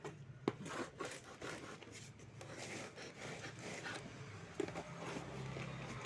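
Scraping, rubbing and scattered clicks of a parcel being opened and its packaging handled, with one sharper knock about half a second in.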